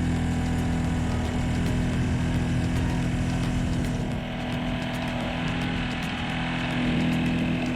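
Small 35cc four-stroke brush-cutter engine driving a homemade boat, running steadily. It eases off a little in the middle and picks up again near the end.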